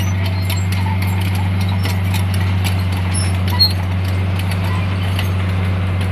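Diesel engine of a heavy earthmoving machine running with a steady low drone, with irregular metallic clicks and clanks throughout and one sharper clank about three and a half seconds in.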